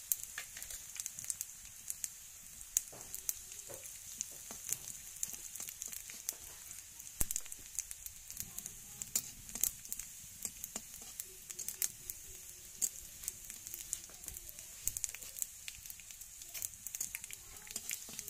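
Panch phoron seeds sizzling and crackling in hot oil in a karahi, with many sharp pops over a steady hiss. A metal spatula stirs the seeds, scraping and tapping the pan.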